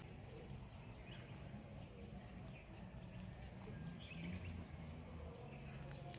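Faint outdoor background with a steady low rumble and a few faint, short bird chirps.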